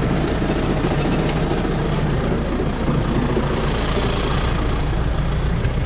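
John Deere tractor's diesel engine running steadily.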